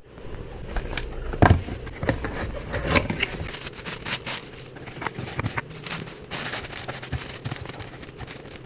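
Irregular close-up rustling and scraping with scattered small clicks and ticks, a few sharper ones around a second and a half and three seconds in.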